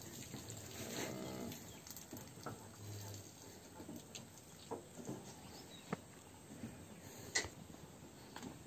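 Herd of cattle milling in a dirt pen: scattered light hoof steps and knocks, with a brief call about a second in.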